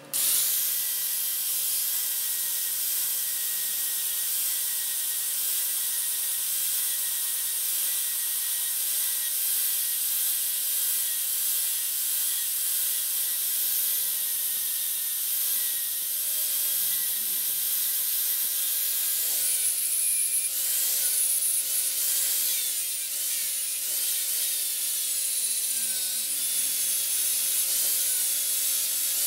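Angle grinder with an abrasive disc running steadily, grinding rust off a rusty pipe wrench, with a steady motor whine over the rasp of the disc on the metal.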